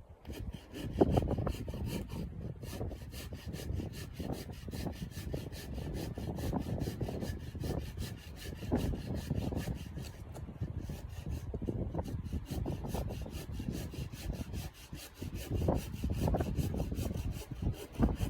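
Hand saw cutting through a wooden board, back-and-forth strokes of the blade rasping through the wood.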